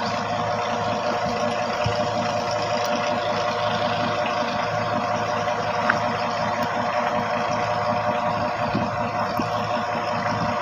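An engine running steadily, a constant drone that does not change in speed.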